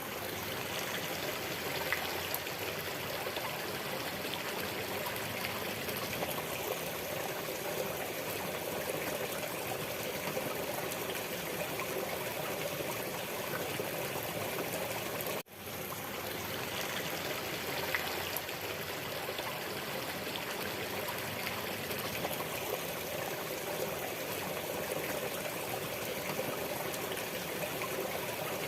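Waterfall: a steady rush of splashing, falling water. About halfway through, the sound drops out for a moment and then comes straight back.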